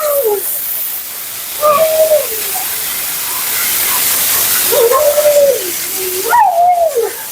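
Siberian husky talking: three drawn-out, wavering woo-calls, about a second in, midway, and near the end, over a steady hiss.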